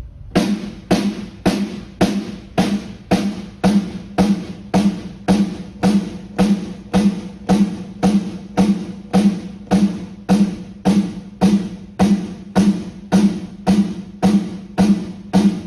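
A snare drum struck on its own in single, evenly spaced hits, about two a second, each ringing briefly: the drummer playing the snare for the engineer during a sound check.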